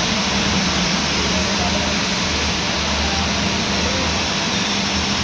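Milling machine running steadily: a constant hum under a wide, even machine noise, with no changes or knocks.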